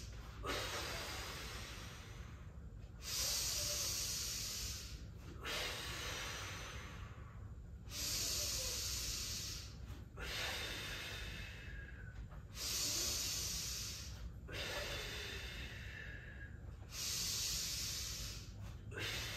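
A woman's slow, audible breathing, paced in and out through nose and mouth, with each breath lasting about two seconds. Four full in-and-out cycles are heard, steady and regular. The breaths are timed to quadruped lifts with the core braced: in through the nose, lifting on the exhale.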